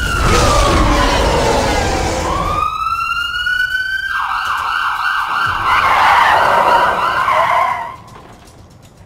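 Police car siren sound effect: a slow wail that falls and then rises, switching to a fast warbling yelp about four seconds in, then dropping away sharply at about eight seconds.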